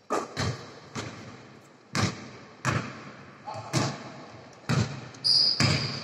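Basketball bouncing on a hardwood gym floor, about one echoing bounce a second at an uneven pace, as in dribbling. A high squeak comes in near the end.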